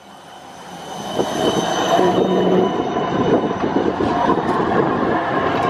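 Siemens Combino low-floor tram passing close by on a curve: its rolling noise grows over the first two seconds and then holds steady, with a steady high wheel squeal from the curved track.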